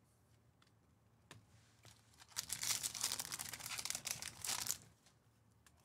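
A foil baseball card pack being torn open, its wrapper crinkling for about two and a half seconds, starting a little past two seconds in, with a couple of light clicks before it.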